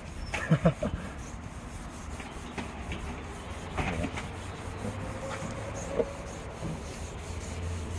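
Sandpaper rubbing over the surface of a car's rear spoiler wing, a steady scratchy sanding done gently to scuff it so paint will stick.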